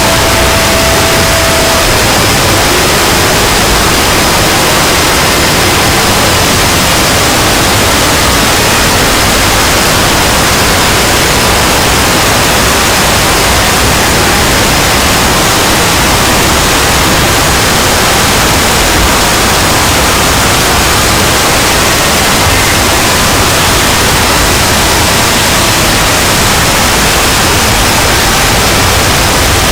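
Continuous, very loud static-like noise filling every pitch without a break: a deliberately overdriven 'loud' sound effect, with faint steady tones buried in the hiss.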